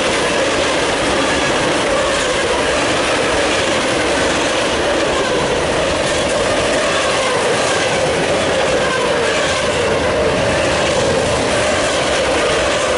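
Freight cars of a Union Pacific mixed freight train rolling past close by at about 48 mph: a steady, loud rumble of steel wheels on rail with clickety-clack, and a wavering whine over it.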